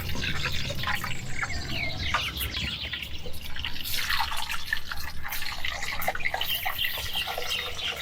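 Water dripping and splashing in quick, irregular drops and trickles, over a steady low hum.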